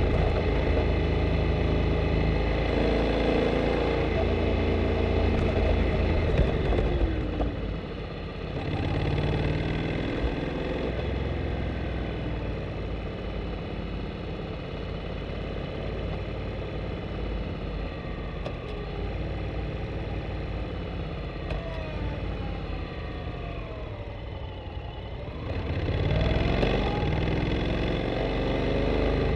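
Honda Integra NC750D's parallel-twin engine running on a downhill ride, heard from under the seat. It is loud for the first seven seconds or so, then drops off and runs quieter through the middle, with its pitch falling, before picking up again about 26 seconds in.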